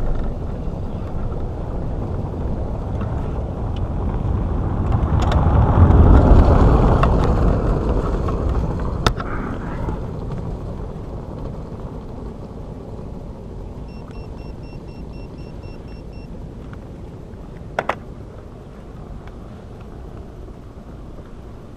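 Road-vehicle rumble that swells to its loudest about six seconds in and then slowly fades away, with a sharp click about nine seconds in and another near the end.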